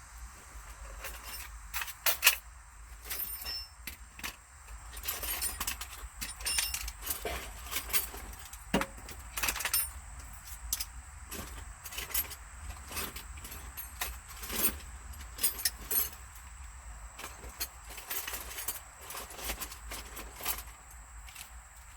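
Scattered metallic clinks and rattles of hand tools being sorted through, as when rummaging for the right socket in a tool set.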